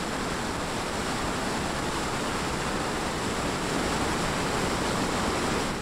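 Muddy floodwater rushing over an overflowing check dam, a steady, dense wash of water noise.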